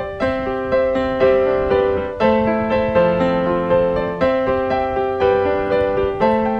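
Background piano music: a gentle melody of sustained notes struck about twice a second.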